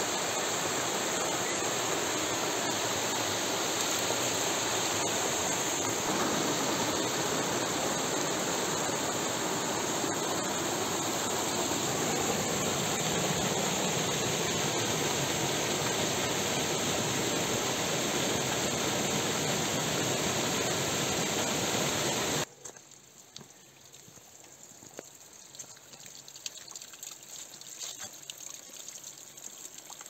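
Steady rush of a small forest stream cascading over rocks and a small waterfall. After about 22 seconds it cuts off abruptly to a much quieter trickle and drip of spring water seeping out of an earth bank.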